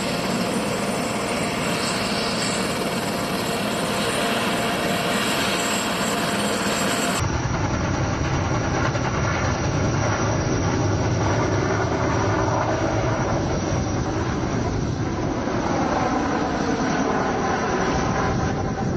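Helicopter with a shrouded (fenestron) tail rotor, its turbine and rotor running steadily as it lifts off. About seven seconds in the sound cuts to another take, heavier in the low end.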